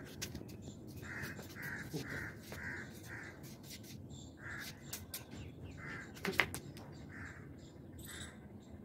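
Faint crow cawing: a quick run of short, hoarse caws about two a second, then scattered single caws. A sharp knock a little past six seconds in.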